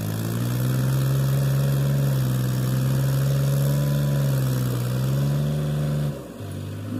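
New Holland tractor's diesel engine running hard under load while it reverses a heavily loaded sugarcane trailer, holding a steady high speed, then dropping back to a lower, quieter speed about six seconds in.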